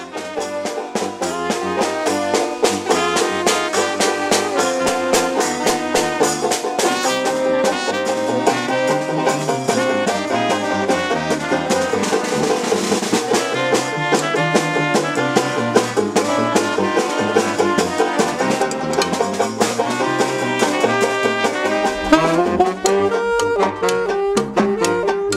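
A fanfare street band playing a lively tune: a sousaphone bass line under saxophones and trumpet, with banjo and drums keeping a steady beat. Near the end the sound changes and the bass goes deeper.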